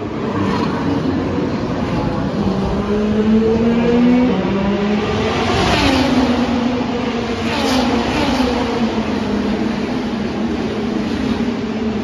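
IndyCar's 2.2-litre twin-turbo V6 racing engine at full speed passing on the front straight: pitch climbing as it approaches, then dropping away as it goes by about six seconds in. A second, shorter sweep follows about two seconds later.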